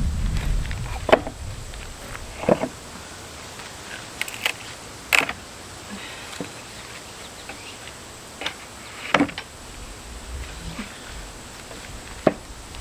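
A wooden pallet being pried apart with a pallet buster: scattered sharp knocks and cracks of boards and nails, about seven over the stretch, a few seconds apart.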